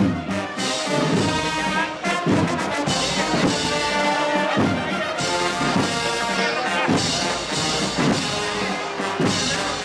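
Brass band playing a processional march, with trumpets and trombones.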